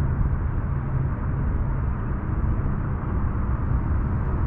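Wind rumbling and buffeting against the microphone: a steady, rough low rumble with nothing else standing out.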